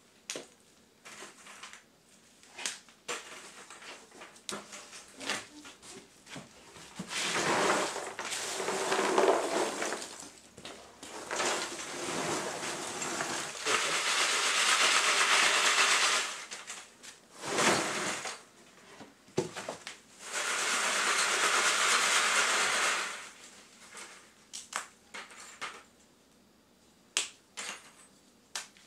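Chunks of chopped charcoal clinking and rattling against each other in scattered clicks. There are three long spells of dense rattling and scraping as the charcoal is scooped with a plastic scoop and worked across a wooden sorting screen.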